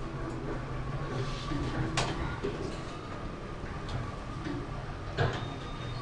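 Hydraulic passenger lift, taken for an Otis Gen2, travelling: a steady hum with a thin steady whine above it. A sharp click about two seconds in and another near the end.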